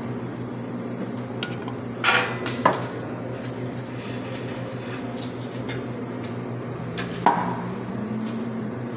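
A few sharp clinks and knocks of a ceramic cup and stainless steel milk pitchers being handled at an espresso machine: two about two seconds in and another later on. A steady low machine hum runs underneath.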